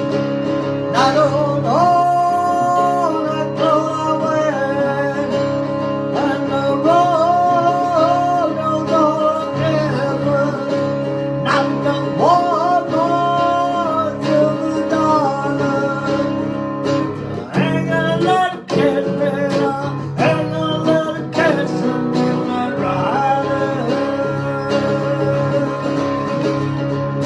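Guitar tuned down a half step, strummed and played as accompaniment, with a voice singing melody lines over it in several phrases.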